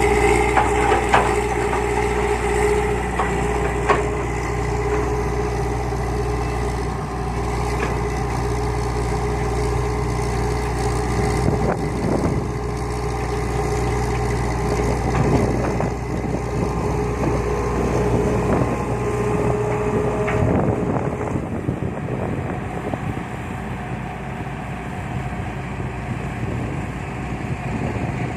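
Heavy diesel machinery working: a Hitachi excavator digging and loading soil into a dump truck, its engine running with a steady low drone and a held hum, with scattered knocks and scrapes. The drone and hum drop away about twenty seconds in.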